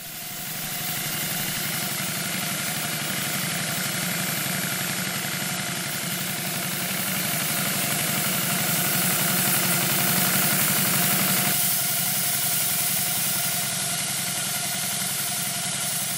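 2-inch scale Burrell traction engine model running under steam: a rapid, even beat of exhaust chuffs over a steady hiss of steam.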